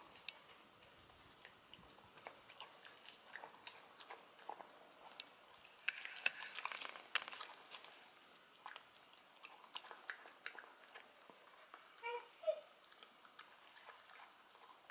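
A young puppy eating wet canned dog food from a stainless steel bowl: soft chewing and lapping with many small clicks of teeth and tongue against the metal, busiest about six to seven seconds in. A brief squeak about twelve seconds in.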